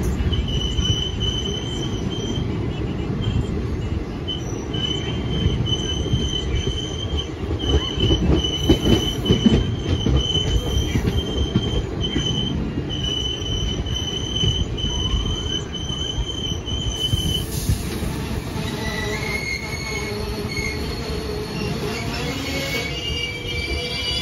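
Indian Railways express train running on the rails: a steady low rumble under a high-pitched wheel squeal that comes and goes in stretches. About 17 seconds in the squeal changes to several lower tones.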